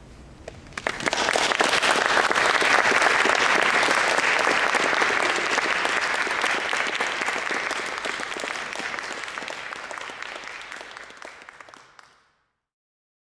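Audience applauding, breaking out about a second in, then slowly dying away and cutting off near the end.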